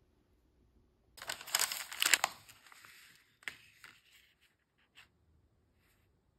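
Packaging crinkling and rustling for about a second and a half, then a few lighter crinkles and taps: small paper tea sachets being handled.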